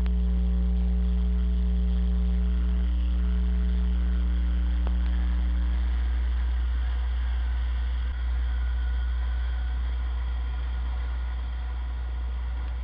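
Single-cylinder dual-sport motorcycle engine running at a steady pitch while riding, under a heavy, constant low wind rumble on a helmet-mounted microphone. The engine note fades about six seconds in, leaving mostly the wind rumble.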